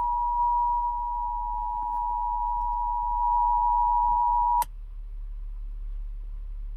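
Emergency Alert System attention signal: a steady two-tone beep of 853 and 960 Hz held for about four and a half seconds, then cut off with a click, leaving faint hiss.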